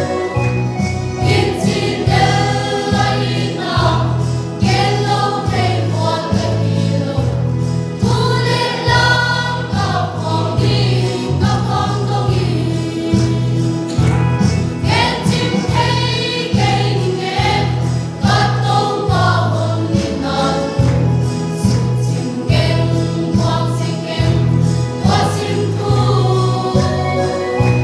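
Mixed choir of young men and women singing a Christian song together, several voices in harmony.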